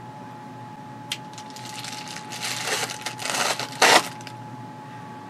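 Plastic Amazon bubble mailer being opened: a click, then crinkling and tearing of the plastic, ending in one short loud rip just before the four-second mark.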